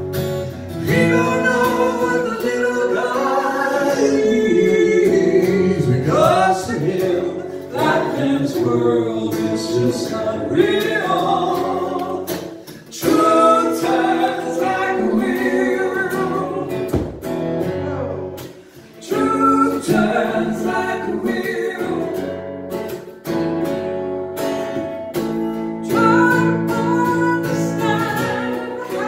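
Live acoustic performance: a woman singing into a microphone over an acoustic guitar, with short breaks between her phrases.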